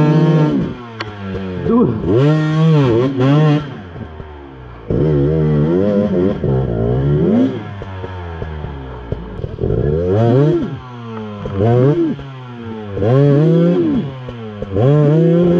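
Enduro motorcycle engine revving up and down over and over, with its pitch climbing and falling in surges about every two to three seconds.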